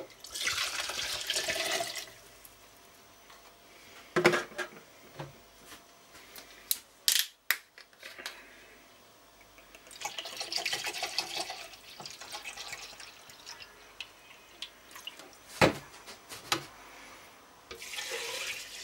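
Liquid poured from a bottle into a glass, two pours of about two seconds each, at the start and about ten seconds in, with a few sharp knocks of glass set down between them. Near the end, the glassful is poured into a glass jar of cherries.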